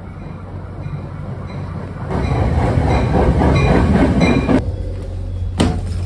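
NJ Transit commuter train running into the station beside the platform: a rumble of wheels on rails that grows louder about two seconds in and cuts off suddenly, followed by a single sharp knock.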